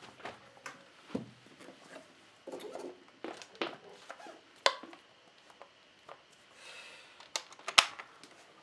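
Scattered knocks, clicks and brief rustles of handling as a person moves about and picks up an electric bass guitar, with one sharp click near the end being the loudest.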